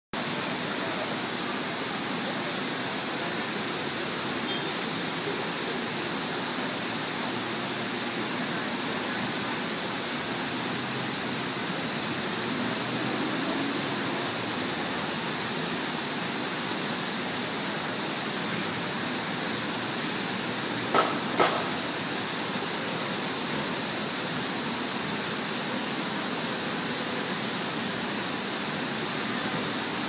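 Steady rushing of water falling down a man-made waterfall wall. Two sharp clicks about half a second apart come about two-thirds of the way through.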